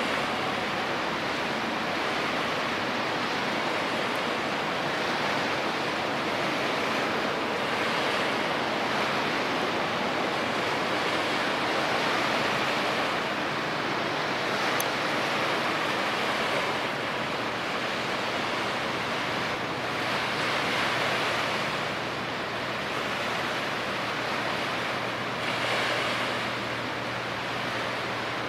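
Steady rushing of waves and wind by the water, swelling and easing every few seconds, with a faint steady low hum in the second half.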